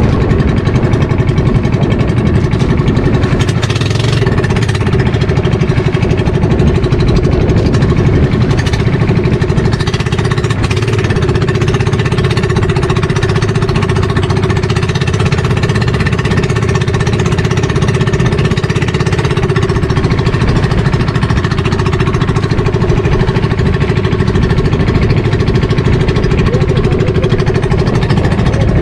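Motorized outrigger boat's engine running steadily at cruising speed, a loud, even drone with a constant hum, over the rush of water along the hull.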